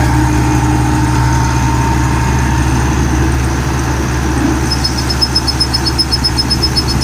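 Rice combine harvester's engine running steadily with a low hum. A rapid, high ticking joins in about five seconds in.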